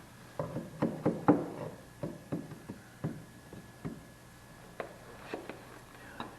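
A series of irregular knocks and clunks from hard objects, about a dozen in all. They are loudest and closest together in the first second and a half, then come more sparsely.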